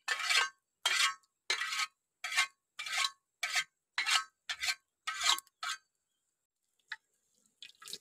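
Metal ladle scraping and stirring in an iron wok, about ten quick strokes at roughly two a second that stop about six seconds in, followed by a few faint clicks.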